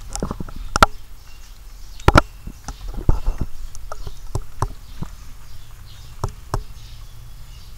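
Scattered clicks and light knocks with faint rustling, from a rat shifting about on wood-shaving bedding in a plastic cage. The two loudest knocks come about one and two seconds in.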